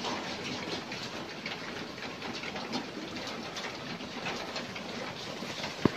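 Wire-mesh rat traps rattling with quick, irregular metallic clicks, and a single sharp knock near the end.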